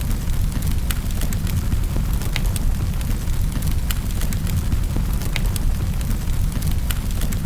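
Fire crackling in a fireplace: irregular sharp pops and snaps over a steady low rumble of the burning.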